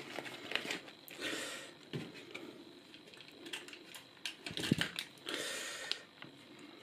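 Handling of cardboard and paper takeaway packaging: a cardboard chicken popcorn box and a paper-lidded dip pot handled by hand. Scattered light clicks and taps, with two short rustles, one about a second in and one about five seconds in.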